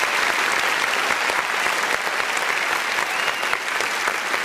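Audience applauding steadily with many hands clapping.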